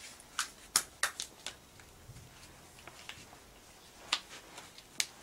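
Light crinkles and taps of a small piece of paper being handled, a few sharp ones in the first second and a half and two more near the end.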